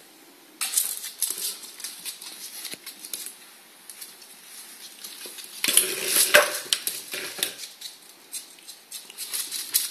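Ferret scurrying on a wooden floor, its claws making quick clicks and scratches, with a louder burst of clattering a little after halfway.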